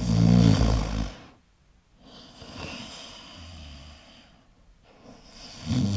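A person snoring: a loud, rough snore in the first second, a softer breath out through the middle, and another snore starting near the end.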